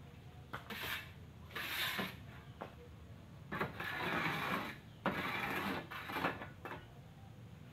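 A shovel scraping through a load of gravel on a pickup truck's bed and the gravel pouring off, about five scoops, each a rasping scrape lasting a second or less.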